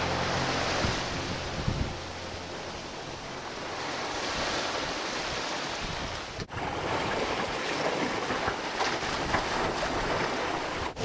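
Wind on the microphone and water rushing past a sailboat under sail: a steady rushing noise, broken by a brief dropout about six and a half seconds in.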